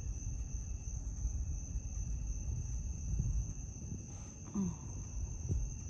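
Crickets trilling in a steady, unbroken high chorus, over a low rumbling noise on the phone microphone.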